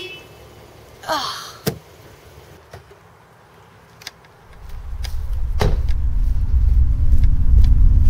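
A car door unlatches and opens with a few sharp clicks. About halfway through, a low rumbling drone swells in and grows steadily louder, with a single knock over it.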